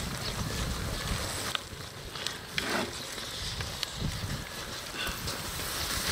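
Spatula and spoon stirring and scraping a thick saucy braise in a cast-iron cauldron over a fire, a few short sharp scrapes and knocks over a steady rushing background.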